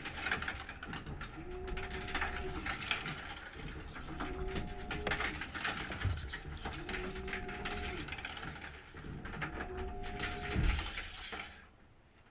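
Washing machine agitating: a motor hum that rises, holds and falls about every two and a half seconds as the wash reverses direction, over a noisy swish. It stops about a second before the end.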